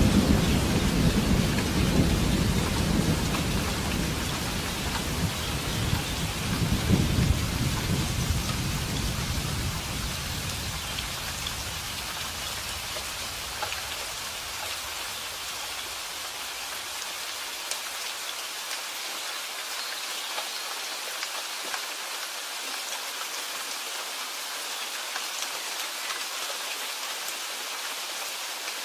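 Steady rain falling, with a long roll of thunder rumbling low in the first ten seconds, swelling once more and then dying away, leaving only the rain.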